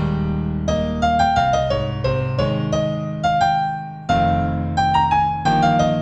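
Solo piano playing a slow new-age tune in A minor: a melody of single struck notes, two or three a second, each fading, over held low chords, with a fresh chord struck about four seconds in.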